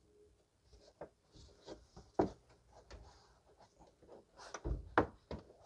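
Scattered light clicks and knocks of hand tools working on a plastic splash shield and its 10 mm screws, the sharpest about two seconds in and near the end.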